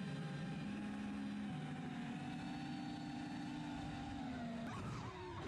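Drone's electric motors and propellers humming steadily as it flies low, heard from its onboard camera, with small shifts in pitch. Near the end the steady hum breaks off into wavering, sliding tones as the drone begins to go out of control.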